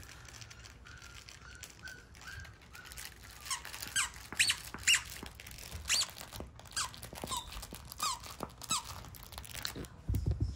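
Six-week-old Cavapoochon puppy whimpering: faint short whines at first, then from about a third of the way in a string of high-pitched squeaky cries, each rising and falling in pitch.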